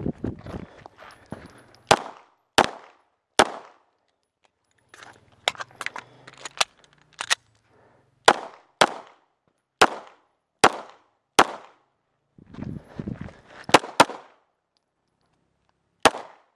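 Pistol shots fired in quick pairs and singles, about a dozen sharp reports in uneven groups, with rustling noise of movement between some of them.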